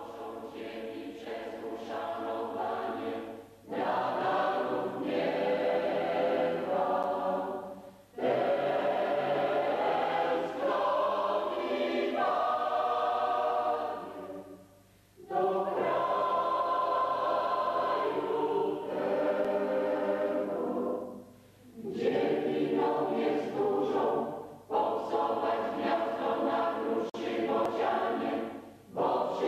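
Mixed choir of men's and women's voices singing in long phrases, with short breaks between them, heard off a worn VHS tape.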